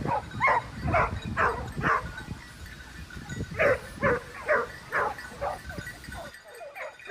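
A dog barking in a series of short, pitched barks, about two a second, with a pause of a second or so partway through. A low background rumble under the barks cuts off suddenly near the end.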